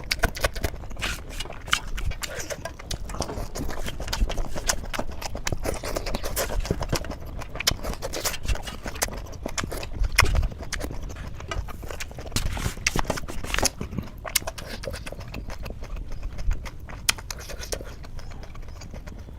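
Close-miked chewing and lip-smacking: a dense, irregular run of wet mouth clicks.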